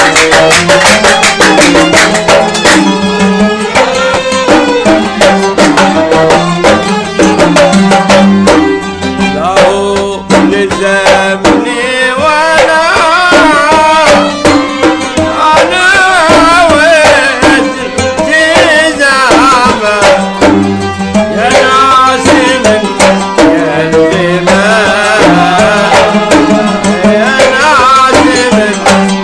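Instrumental passage of Gulf sawt music: violins and qanun carry a wavering melody over a steady, busy rhythm of mirwas hand drums.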